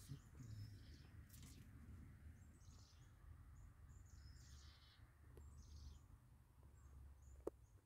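Near silence outdoors: faint distant bird chirps every second or so over a low rumble, with one sharp click near the end.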